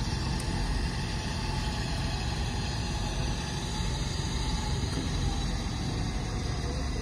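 Steady low engine rumble, with faint engine notes rising and falling now and then.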